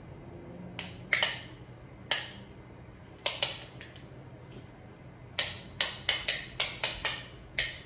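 Sharp clicks from a tape measure being handled and pulled snug around a head: a few scattered clicks, then a quick run of about eight near the end.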